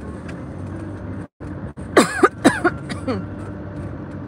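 A person coughs about three times, a little after halfway, over the steady hum of a car's cabin while driving. The sound drops out completely for a moment just before the coughs.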